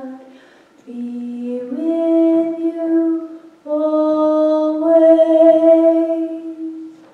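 A woman singing solo with no accompaniment, holding slow, sustained notes in two phrases; the last note ends just before the close.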